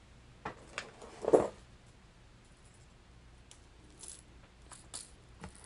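A handful of short, light clicks and clinks from a hard plastic fishing lure and its metal treble hooks being handled, the loudest about a second in and fainter ticks later on.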